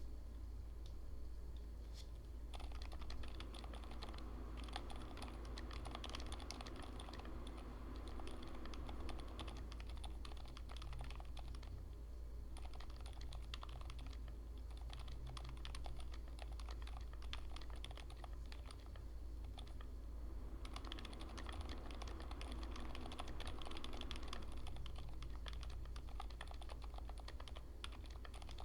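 Typing on a Drop ALT High Profile keyboard fitted with IDOBAO x Kailh Elf Green ultra-silent linear switches: quiet, dampened keystrokes in quick continuous runs, with a couple of short pauses, over a steady low hum.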